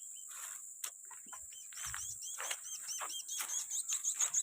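Rapid series of short, high bird chirps that come faster and louder toward the end, over a steady high insect drone.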